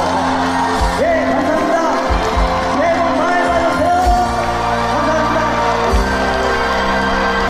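Male trot singer performing a song with band accompaniment.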